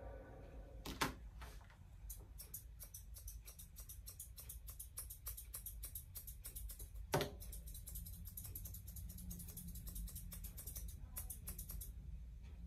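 Small grooming shears snipping rapidly through the long hair of a Persian cat's tail, a quick run of crisp clicks about five a second, with two sharper clicks about a second in and about seven seconds in.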